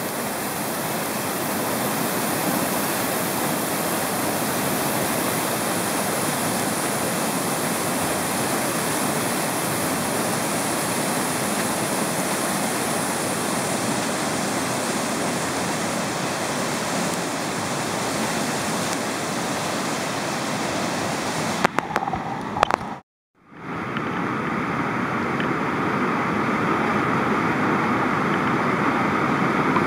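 Steady rush of whitewater from a big river rapid and its breaking wave. It cuts out abruptly for a moment a little after 23 seconds, then the rush resumes.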